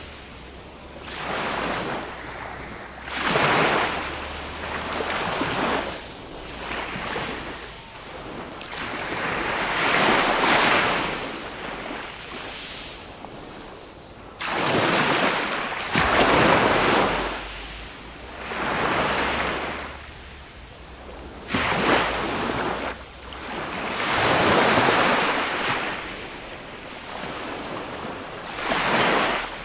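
Small waves of a calm Mediterranean sea breaking and washing up the beach, each one a rush that swells and fades every few seconds, a couple of them breaking with a sudden slap.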